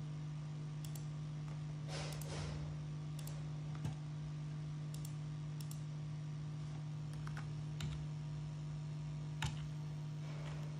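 Scattered computer mouse clicks and keyboard key taps at irregular intervals, over a steady low hum.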